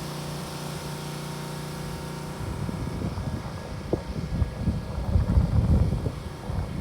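A steady engine-like hum, then from about two and a half seconds in, strong gusting wind buffets the microphone.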